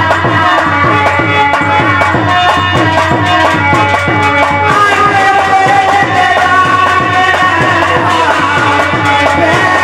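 Harmonium and dholak playing a folk bhajan tune together: held harmonium notes over a steady, even dholak rhythm.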